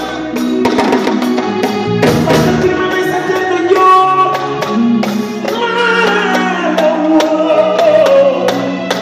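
A Senegalese mbalax band playing: sharp sabar drum strokes in a quick steady rhythm over keyboard, bass and electric guitar, with a sung or keyboard melody that winds downward near the end.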